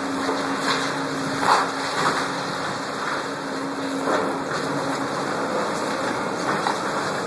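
Diesel engine of a demolition excavator running steadily with a low hum, with a few brief knocks as debris is worked.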